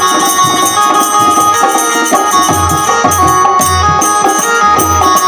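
Instrumental passage of an Indian devotional folk song: a sustained melody over a steady hand-drum rhythm, with deeper bass drum beats joining about halfway through.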